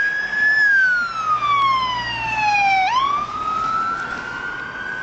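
A siren wailing: its pitch falls slowly for about two seconds, sweeps back up about three seconds in, and holds high near the end.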